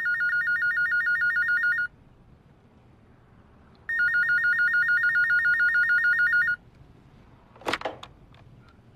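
Office desk telephone ringing with a rapid electronic warbling trill, two rings of about two and a half seconds each. A short clatter just before the end is the handset being picked up.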